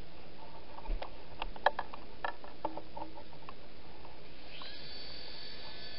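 Light plastic clicks and taps as the Whirly Ball flying toy is handled, then about four and a half seconds in its small electric motor and propeller start up with a steady high whine.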